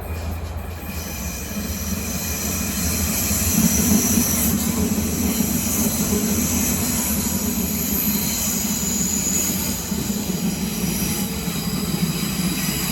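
Berlin S-Bahn electric train running through the station, with a steady rumble and a high wheel squeal over it, loudest about four seconds in.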